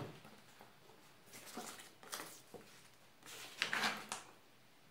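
Faint rustling and handling noises in two short spells, one about a second in and a louder one past the middle.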